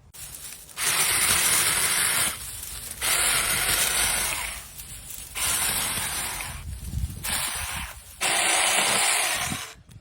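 Small chainsaw run in four bursts of about one and a half seconds each, its chain cutting through fruit.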